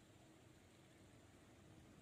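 Near silence: faint, even background hiss with no distinct sound.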